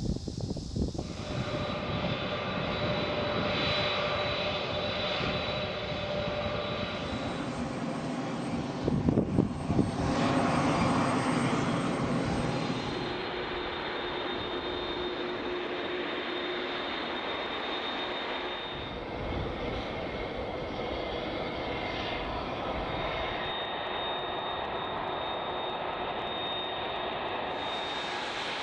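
Lockheed C-5 Galaxy's four turbofan engines running as the big transport rolls along the ground, a continuous jet rumble with a steady high whine. It swells louder for a couple of seconds about a third of the way in.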